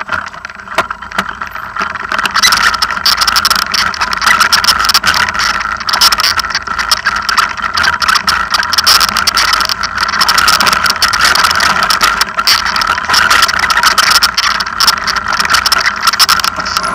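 A vehicle engine running steadily, with many small rattles and clicks throughout; it grows louder over the first two seconds, then holds.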